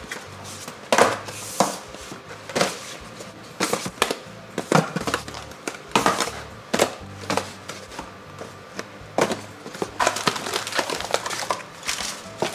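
Cardboard boxes being set down and stacked on a cabinet shelf: a series of sharp knocks and taps, with a quicker run of crinkly rustling near the end as plastic wrapping is handled.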